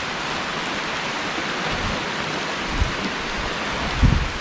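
Steady rain falling, an even hiss. A short low thump about four seconds in, with a fainter one a second before it.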